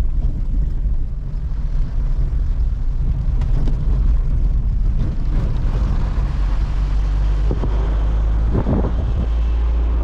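Car driving on an unpaved dirt road, heard from inside the cabin: a steady, heavy low rumble of engine and tyres on the rough surface.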